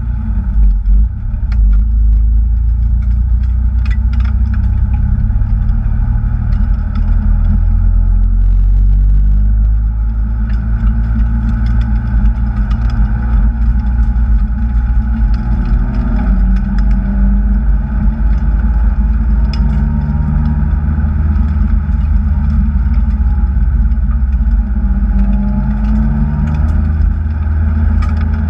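Kraftwerks-supercharged Acura TSX engine running continuously and loudly, its pitch rising and falling as it is driven, over a heavy low rumble.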